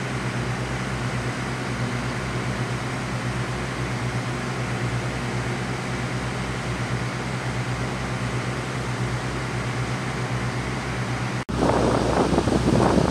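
Steady, even drone of engines running, typical of fire-truck pumps moving floodwater. About eleven seconds in it breaks off sharply and gives way to a louder rushing noise, like wind on the microphone.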